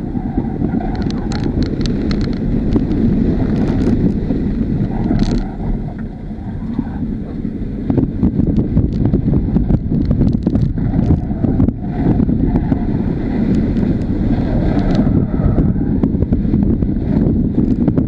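Tesla electric car's steady road rumble and tyre noise heard from inside the cabin while it is driven hard through an autocross course, with no engine note. Scattered sharp ticks, a cluster about a second in.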